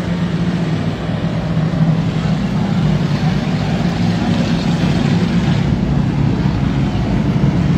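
Racing stock car engines as a pack of cars runs laps at speed, a loud, steady drone of several engines together.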